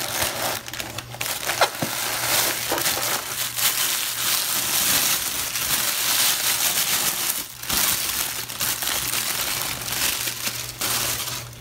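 Tissue paper and plastic air-cushion packaging crinkling and rustling as they are handled and unwrapped, nearly continuous with a short pause about seven and a half seconds in.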